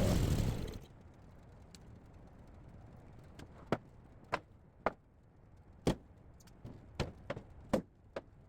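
Loud, steady sawmill noise cuts off suddenly under a second in. Then about eight sharp wooden knocks and taps follow at uneven intervals as freshly sawn poplar boards are handled.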